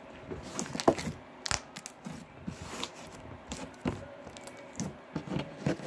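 White fluffy slime being stretched and squeezed by hand, making irregular sticky pops and crackles.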